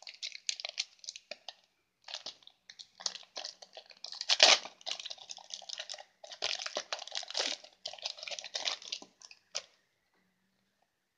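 Foil booster-pack wrapper crinkling and crackling as it is handled and torn open, in irregular bursts. The loudest crackle comes about four and a half seconds in.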